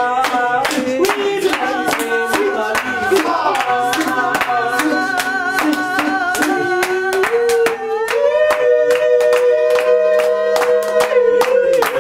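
Voices singing long held notes together over steady rhythmic hand clapping; the sung pitch steps up about eight seconds in and is held.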